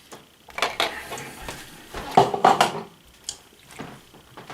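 Metal spoon clinking and scraping against a dish, in several short strokes, the loudest about halfway through, as chili is scooped out and spread.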